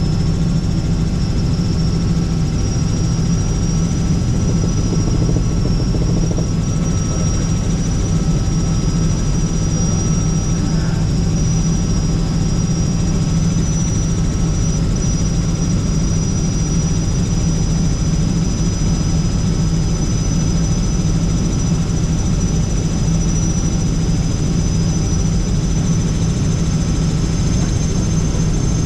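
Helicopter in steady flight heard from inside the cabin: a constant low drone from the rotor and engine, with a thin high whine that creeps slightly higher in pitch.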